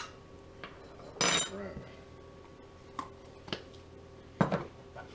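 Metal teaspoon clinking against a ceramic mixing bowl and knocking on the countertop: a few separate sharp clinks, one ringing about a second in, the loudest knock about four and a half seconds in.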